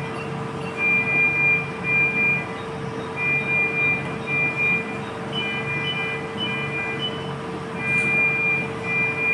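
Repeated electronic beeps at one fixed pitch, mostly in pairs, with a quicker run of four shorter, higher beeps midway, over a steady electrical hum, like the alarm tones of ward monitoring equipment.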